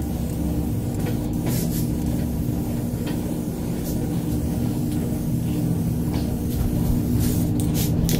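Rust-barrier paint spraying onto the underside of floor pans in several short hisses, a cluster of them near the end, over a steady machine hum.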